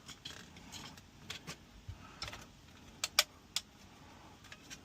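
Irregular sharp plastic clicks and taps from a Ford Fiesta instrument cluster being prised apart by hand, its push-in clips working loose; the loudest clicks come about three seconds in.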